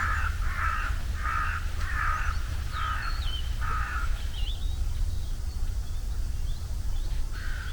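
A crow cawing: six harsh caws in quick succession, then a pause and one more caw near the end. A steady low rumble runs underneath, with a few faint thin whistles from another bird.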